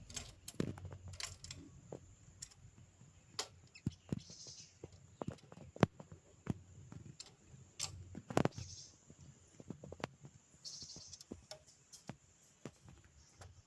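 A small bird tapping and pecking at a window pane: irregular sharp taps, sometimes a few in quick succession, the loudest a little past the middle.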